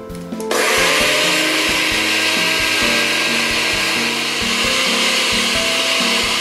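Electric countertop blender switching on about half a second in and running steadily at speed, pureeing chunks of watermelon into juice.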